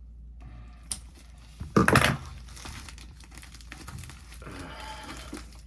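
Packaging being unwrapped by hand: crinkling and tearing, with a louder burst about two seconds in, then continuous rustling.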